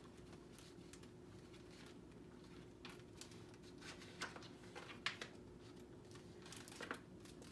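Near silence: quiet room tone with a faint steady hum and a few soft rustles of picture-book pages being turned.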